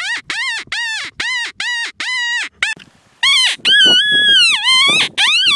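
Mouth-blown predator call giving high, animal-like cries for calling coyotes: a quick run of short, falling yelps, about three a second, then after a brief pause longer, drawn-out wavering cries.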